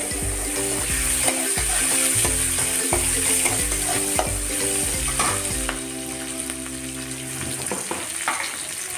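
Green chillies, curry leaves and panch phoron sizzling in hot mustard oil in an aluminium kadai, stirred with a steel spatula that scrapes and clicks against the pan.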